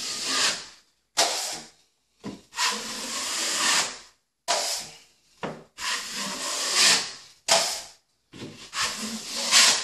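A 12-inch drywall knife scraping thinned all-purpose joint compound over a knockdown-textured wall while skim coating: about seven separate hissing strokes, each under two seconds, with short pauses between them.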